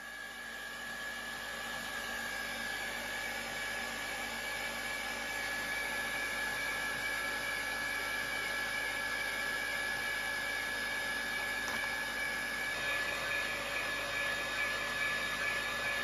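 Line boring machine running steadily, its boring bar turning in the steel bore and taking a fine cut with an insert tool: a steady mechanical whine with a high tone, becoming a little rougher from about thirteen seconds in.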